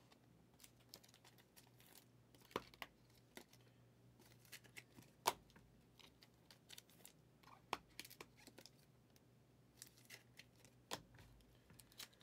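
Trading cards being handled: faint, irregular taps, clicks and crinkles, with a sharper tap about five seconds in.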